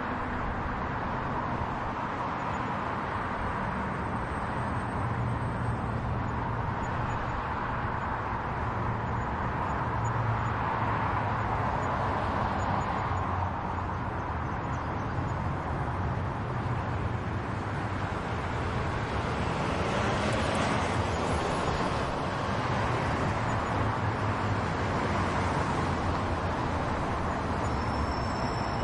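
Road traffic: a steady rush of passing cars with a low engine rumble beneath, swelling a little about two-thirds of the way through as vehicles go by.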